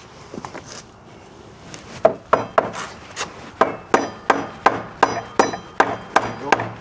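Hammer blows in a steady rhythm of about three a second, starting about two seconds in, the later strikes ringing briefly like metal.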